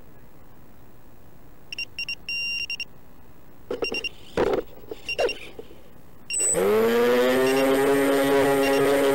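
AR600 flying wing's electric motor and pusher propeller spinning up under INAV auto-launch, rising quickly and then holding a loud, steady drone. Before it come a few short electronic beeps as the wing is armed and set to auto-launch, and some knocks and rustles of handling.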